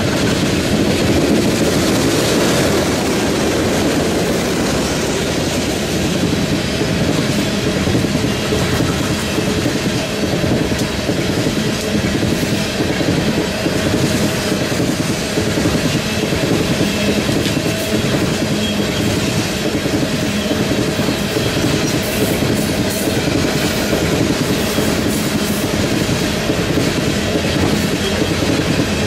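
Loaded coal train's hopper cars rolling past at speed: a steady rumble of steel wheels on the rails.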